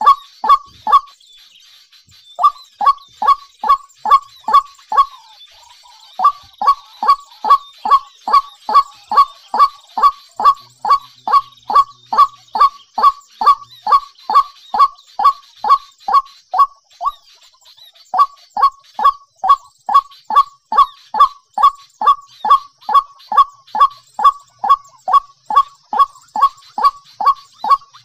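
White-breasted waterhen calling: short, falling, honk-like notes about three times a second, broken by a few brief pauses, over a steady faint high hiss.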